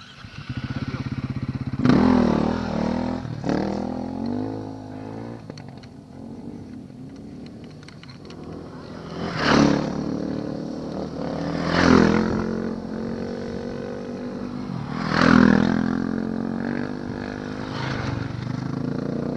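Two-stroke GasGas EC enduro bike engine running with a rough idle, blipped up to a rev several times: about two seconds in, then three sharp rises around the middle.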